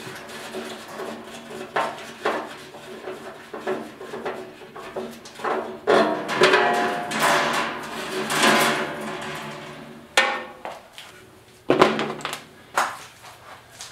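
Metal parts of a gas barbecue being handled in its sheet-metal firebox: irregular clanks, knocks and scraping, with a few sharp knocks in the second half.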